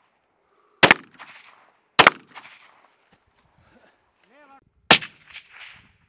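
Three single gunshots on an open range, each followed by a short echo: the first about a second in, the next a second later, and the last near the end.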